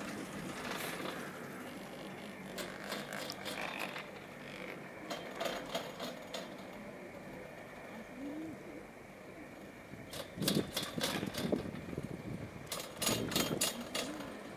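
Chairlift running on its haul rope: bursts of rapid clicking and clattering from the rope and chair passing over the tower sheave wheels, louder over the last few seconds as the chair nears a lift tower, over a faint steady whine.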